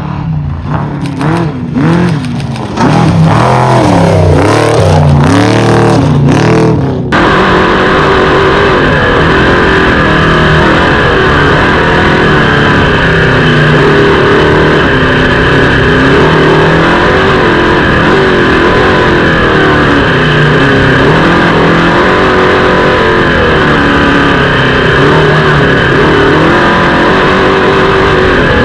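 Off-road race vehicle's engine running hard, its pitch rising and falling as it revs up and down. About seven seconds in the sound changes abruptly to a fuller, steadier drone.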